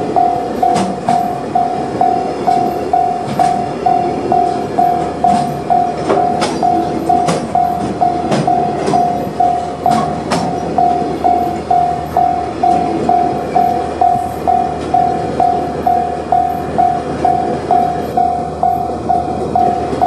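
Japanese level-crossing alarm ringing steadily, about two tones a second, while a long container freight train rolls by, its wheels clacking over rail joints through the first half.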